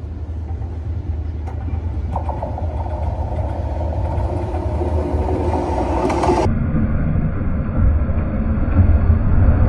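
D19E diesel-electric locomotive approaching on the rails: a low, steady engine rumble that grows steadily louder as it closes in.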